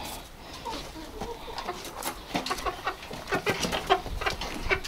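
A flock of domestic chickens clucking: a scatter of short clucks and calls.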